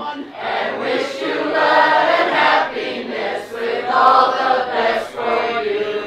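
A group of men's and women's voices singing a song together in chorus: a toast song written for the couple and sung from song sheets in the Danish wedding tradition.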